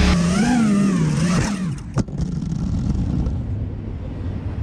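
FPV racing quadcopter's motors running and wavering up and down in pitch, then dying away after about a second and a half. About two seconds in comes one sharp knock as the quad hits the ground, followed by a steady rushing noise.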